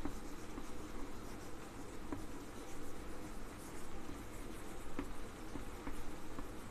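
Chalk writing on a chalkboard: faint scratching of the chalk with a few light taps, over a steady low room hum.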